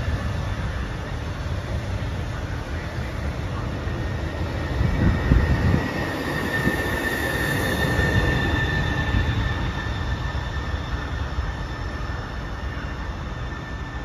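ETR 524 (Stadler FLIRT) electric multiple unit rolling slowly past: a steady rumble of wheels on rail, a few low thumps about five seconds in, and a high wheel squeal that grows loudest past the middle.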